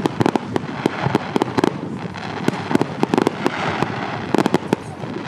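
Aerial fireworks bursting: rapid volleys of sharp bangs and crackles coming in several quick clusters over a continuous rumbling wash.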